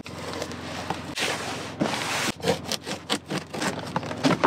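Packing tape being pulled off a cardboard shipping box: a long tearing rasp for about two seconds, then a run of short crackles and scrapes of tape and cardboard.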